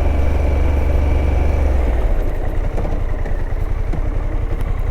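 Harley-Davidson Pan America's 1250 cc V-twin engine running under a rider on a dirt practice area. Its strong low note drops away about two seconds in as the bike comes off the throttle for a hard quick-stop on the brakes.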